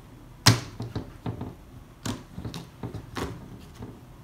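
Locking ring being worked off an SCM CNC vacuum pod: a series of irregular sharp clicks and knocks, the loudest about half a second in.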